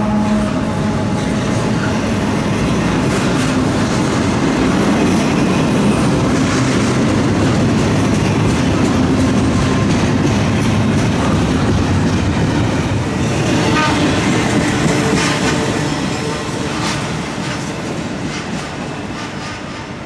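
Double-stack intermodal freight train's well cars rolling past close by: a steady rumble with wheels clattering on the rails, and a run of sharp clicks about two-thirds of the way through. It fades over the last few seconds as the end of the train passes and moves away.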